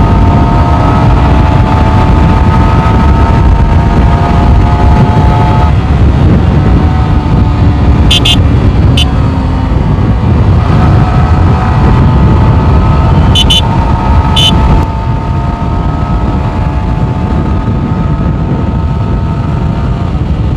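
Yamaha R15 V4's 155 cc single-cylinder engine running steadily at highway cruising speed, under heavy wind rush on the microphone. Short, high beeps come in pairs, about eight seconds in and again about thirteen to fourteen seconds in. The noise eases off about fifteen seconds in.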